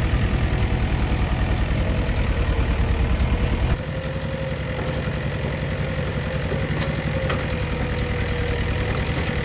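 JCB 3DX backhoe loader's diesel engine running steadily at idle with an even pulsing beat, dropping suddenly in level about four seconds in.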